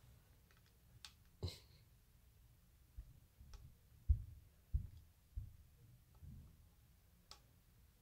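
A blue parrotlet's beak tapping and pecking at a plastic juice bottle: scattered soft taps and clicks, with a run of dull knocks in the middle seconds.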